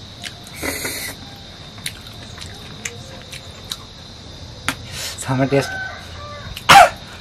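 Chickens clucking, with one loud, short squawk falling in pitch near the end, over small scattered clicks of eating.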